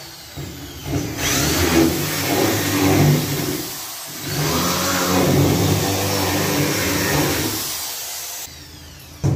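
Makita electric drill running and boring through a fiber cement (Hardiflex) board wall, in two long runs with a short stop about four seconds in.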